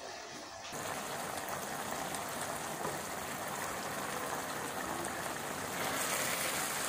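Chicken pieces sizzling in a non-stick pan with the cooking water nearly boiled off: a steady frying hiss that starts about a second in. It gets brighter near the end, where a wooden spatula starts stirring.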